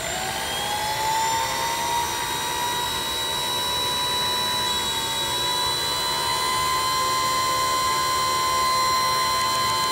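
See-through model turbojet engine spinning up on its starter before light-off: a high whine that rises in pitch over the first second, then holds steady with a slight shift in pitch about five seconds in.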